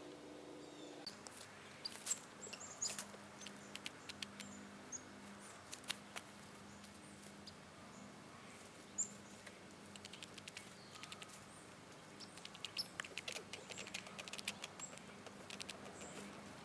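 Squirrels making faint, irregular sharp clicks and short high chirps that come in scattered clusters, with a faint steady low hum underneath.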